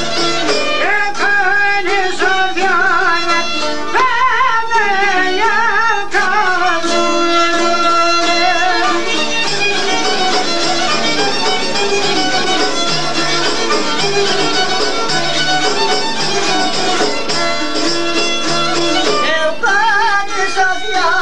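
Traditional Albanian folk music played live, with a wavering, ornamented lead melody line over a steady string accompaniment.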